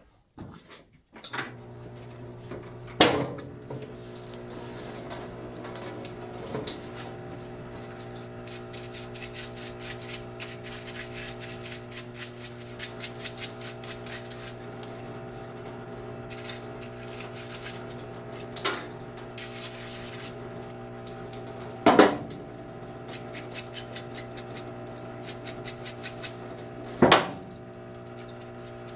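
Parts washer's electric pump starts about a second in and hums steadily while solvent pours from the flexible nozzle over a part being scrubbed. Four sharp knocks of the part against the tub stand out, the loudest about two-thirds of the way through.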